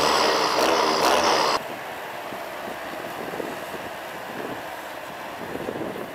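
John Deere tractor's diesel engine running steadily under load, loud and close, then cut off suddenly about one and a half seconds in and replaced by a quieter rumble from a John Deere tractor pulling a plough through the field.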